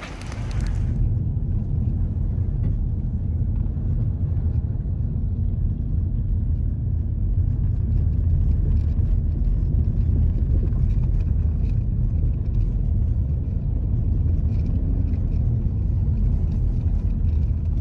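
Loud, steady low rumble that comes in about a second in and runs unbroken until it cuts off at the end.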